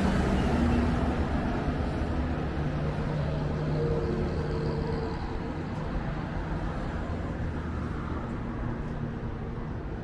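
A motor vehicle's engine running, a low rumble with steady tones that slowly fades.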